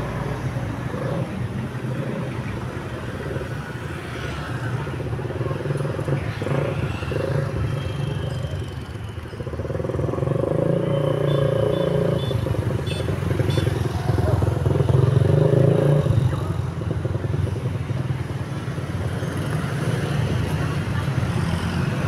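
Road traffic passing: vehicle engines running by with motorcycles among them, swelling louder about ten seconds in and again around fifteen seconds.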